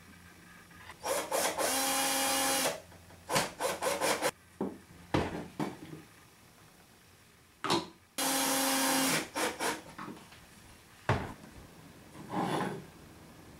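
Makita cordless drill/driver running in two bursts of about a second each, fastening the corners of a pine frame, with sharp wooden knocks and clicks between the bursts as the pieces are handled on the bench.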